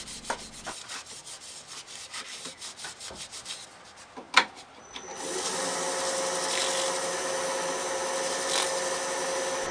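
A rag rubbing oil into the inside of a segmented wooden bracelet in quick, rhythmic strokes, with a single click about four seconds in. About five seconds in, the wood lathe starts and runs steadily with a constant whine while the rag is held against the spinning bracelet.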